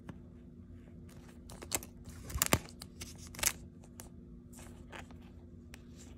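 Thin plastic card sleeve crinkling and rustling as a trading card is slid into it, with a few sharper crackles about two and a half and three and a half seconds in. A faint steady low hum underneath.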